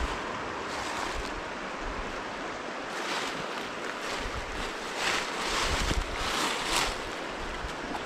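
River water rushing in a steady hiss that swells a few times, with wind buffeting the microphone in low bumps.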